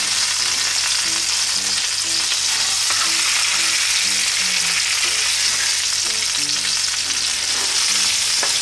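Chicken breasts searing skin side down in salted butter in a nonstick frying pan: a steady, even sizzle as the skin browns.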